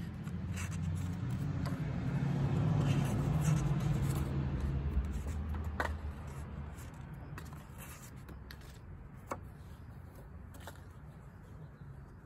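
Low engine rumble of a passing vehicle, swelling over the first few seconds and fading after about six. Light clicks and rustles of paper cards being handled come on top of it.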